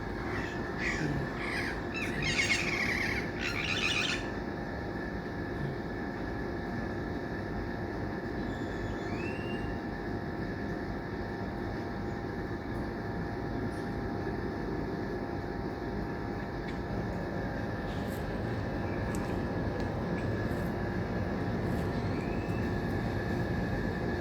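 Steady background noise with a low hum, and a few bird chirps in the first few seconds.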